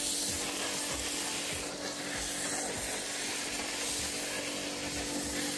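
Karcher K7 pressure washer spraying snow foam through an MJJC foam cannon: a steady hiss of spray over the pump's hum, cutting off abruptly near the end.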